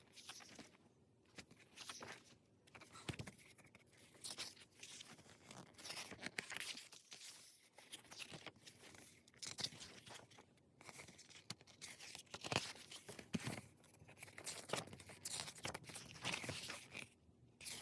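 Pages of an album photo book being turned one after another: short paper swishes and crackles every second or so.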